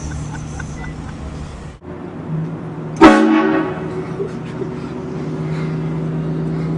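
Train horn blasting suddenly about three seconds in: a loud chord of several notes that fades over about a second, with a steady low hum underneath.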